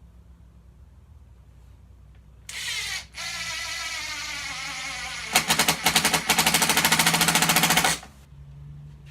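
Impact driver with a Robertson bit driving a wood screw into a chair slat. The motor spins up about two and a half seconds in, pauses briefly, then the impact mechanism hammers rapidly for about three seconds as the screw meets resistance and seats, and stops suddenly.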